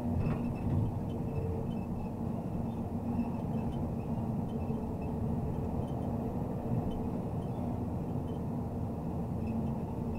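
MAZ Zubr 32-tonne truck crane under way: a steady diesel engine drone mixed with road noise.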